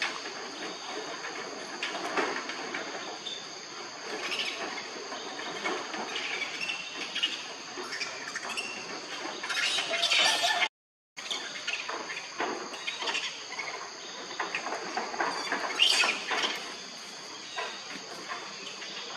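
Outdoor ambience with a steady high insect drone. Over it run irregular rustles and scratches and short high squeaks from macaques, with a brief dropout to silence just after the middle.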